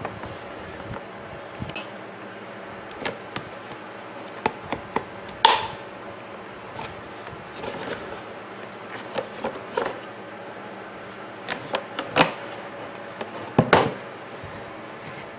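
Irregular clicks, taps and knocks of plastic coffee-maker parts and hand tools being handled during disassembly. A few sharper knocks stand out, about five seconds in and twice near the end.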